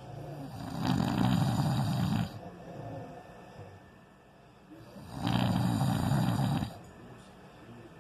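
A man snoring in his sleep: two loud, rasping snores on the in-breath about four seconds apart, each lasting about a second and a half, with quieter breathing between them.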